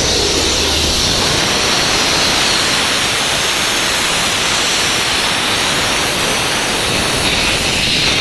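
Compressed air hissing loudly and steadily from a leaking air line on a 13-year-old Ashok Leyland bus, escaping where a line was undone. The leak keeps the air pressure from building, so the bus cannot be moved.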